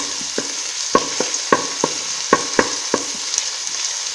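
Chopped onion and green chilli sizzling in hot oil in a pan as they are sautéed toward browning. A wooden spatula stirring them knocks against the pan in repeated short clacks over a steady hiss.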